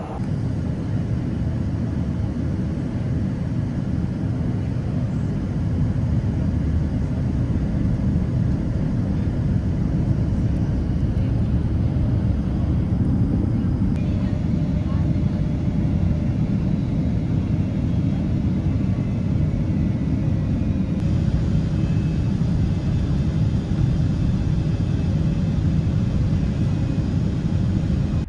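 Boeing 777-300ER cabin noise: a loud, steady, deep rumble of engines and airflow heard from inside the cabin.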